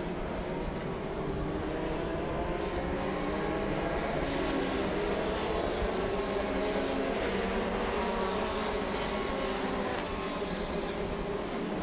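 Formula Renault 2.0 single-seater race cars, with 2.0-litre four-cylinder engines, running at speed past the trackside. The engine notes of several cars overlap, their pitch rising and falling as they change speed through the corners.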